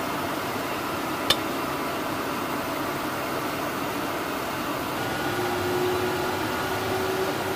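Steady flight-deck noise aboard a KC-135 tanker in flight: a constant rush of air and engine hum. A single sharp click comes about a second in, and a faint steady tone joins from about five seconds in.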